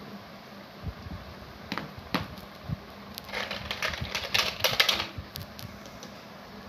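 Hard plastic toy animal figures tapping and scraping on a ceramic tile floor as they are moved: a few separate knocks, then a quick run of clicks and scrapes from about three to five seconds in.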